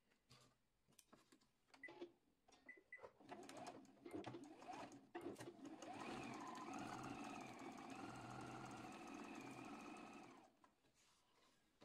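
Electric sewing machine stitching through cotton fabric. A few scattered clicks and rustles come first, then the machine runs at a steady speed for about four seconds and stops.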